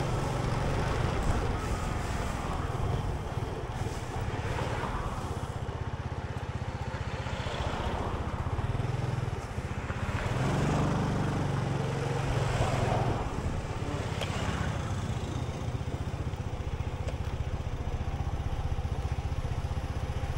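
A road vehicle's engine running steadily with road noise, while other traffic swells past several times.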